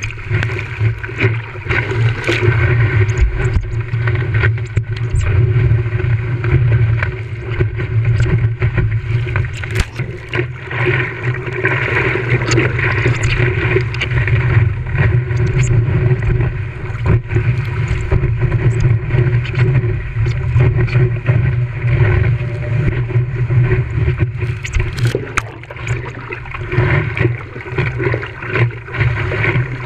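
Strong onshore wind buffeting the camera microphone as a heavy, fluctuating low rumble, with water noise from the surf and scattered sharp knocks throughout.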